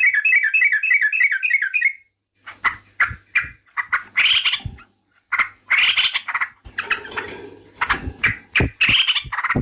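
Yellow-vented bulbul (trucukan) calling: a rapid bubbling trill of about five notes a second for the first two seconds, then harsh, scratchy chattering calls in short bursts mixed with sharp clicks.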